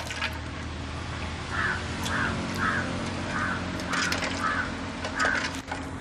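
A bird cawing seven times in an even series, a little over one call a second, starting about a second and a half in. Under it, cashews fry in oil in an aluminium pan, with a few clicks of a steel spoon against the pan.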